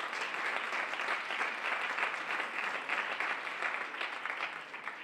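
Audience applauding: dense clapping from many hands that begins to die away near the end.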